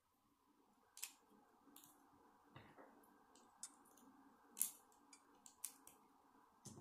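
Small plastic Lego bricks clicking as they are handled and snapped together by hand: a scattered run of sharp clicks, the loudest about four and a half seconds in, over a faint steady hum.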